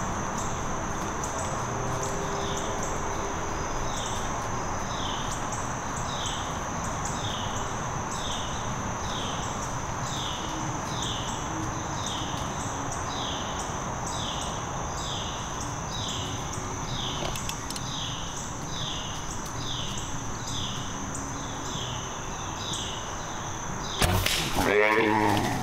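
Woodland insects: a steady high-pitched drone with a short falling chirp repeating about once a second. A brief loud noise comes near the end.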